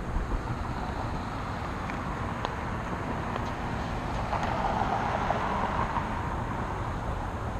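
Steady rumble and wind hiss from a bicycle-mounted action camera while riding over pavement, with a brighter hiss swelling briefly about four seconds in.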